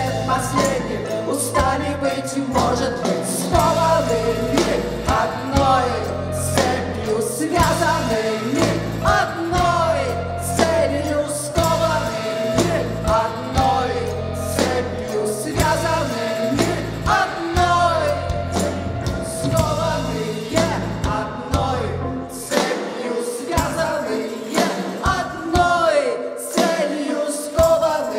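A rock band playing live with many voices singing together. About 22 seconds in, the bass drops out, leaving mostly the voices.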